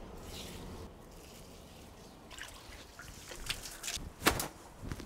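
Soaked raffia being lifted out of a shallow tray of water: water dripping and splashing, faint at first, then more frequent in the second half with a few sharper splashes about three and a half and four seconds in.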